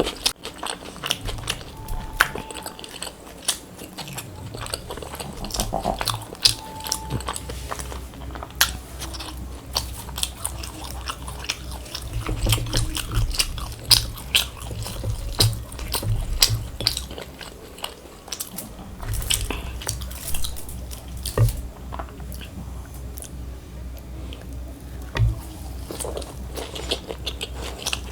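Close-miked mouth sounds of a person eating luchi with crisp fried potato (aloo bhaja): crunchy bites, wet clicks and steady rhythmic chewing.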